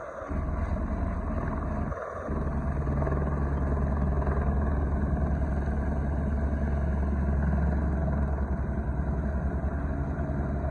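Firefighting helicopter's rotor and engine running steadily, with a fast, even beat from the blades; the sound dips briefly about two seconds in.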